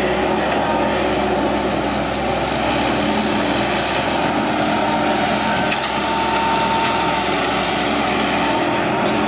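Diesel engine of a working excavator running steadily.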